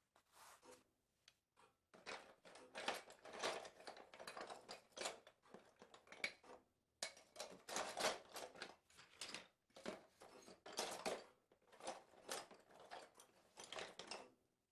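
Irregular dry rustling and crunching noises, some short and some drawn out over a second or more, broken by brief pauses.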